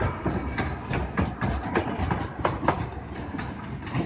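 Small open-sided miniature passenger train running along its narrow track, with a steady low rumble and sharp wheel clicks over the rail joints a few times a second.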